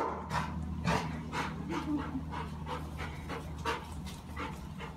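A puppy panting in quick short breaths, about four a second, worked up at the sight of a cat. A steady low hum runs underneath.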